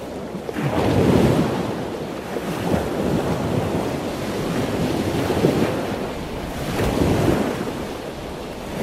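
Ocean surf: waves washing in, rising and falling several times, with wind rumbling on the microphone.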